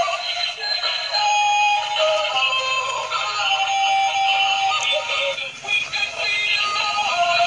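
Dancing duck toy playing its built-in song, a synthesized singing voice over electronic music, through a small tinny speaker with almost no bass.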